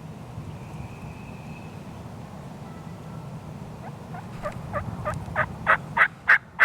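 Wild turkey yelping: a run of about ten short yelps starting about four seconds in, getting louder and quicker toward the end, over a steady low background noise.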